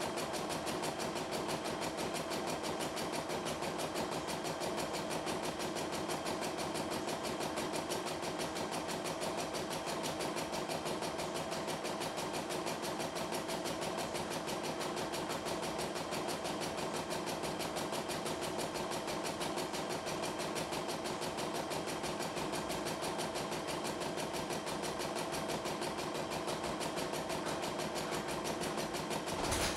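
CNY E960 computerised embroidery machine stitching steadily, its needle running at an even, rapid rate as the hoop moves the fabric beneath it; the touchscreen shows a speed setting of 650.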